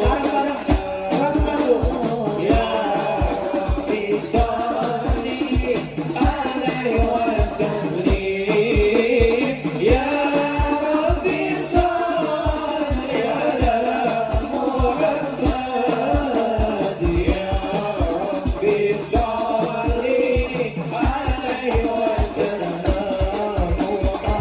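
Several male voices singing a sholawat together through microphones, over a hadrah ensemble of rebana frame drums beating a quick, steady rhythm with jingling percussion.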